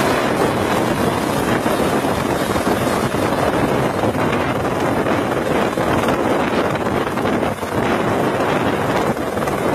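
Light helicopter hovering close by: steady, loud rotor and engine noise mixed with heavy wind buffeting on the microphone from the rotor downwash.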